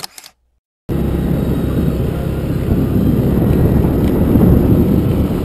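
Motor scooter riding along a road, with heavy wind rumble on the rider's microphone. It starts about a second in, after a short click and a moment of silence.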